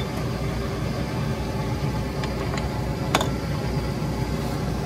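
Metal lathe running steadily, its motor and spindle turning, ready for boring a ratchet gear bushing. There is one sharp click a little past the middle.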